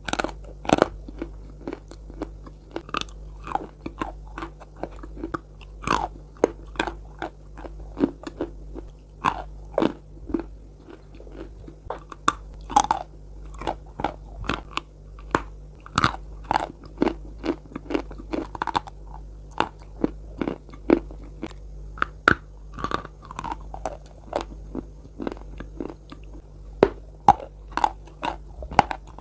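Close crunching and chewing of Bogorodsky chalk coated in a clay paste: sharp, irregular crunches as the chalk is bitten and ground between the teeth, several a second at times.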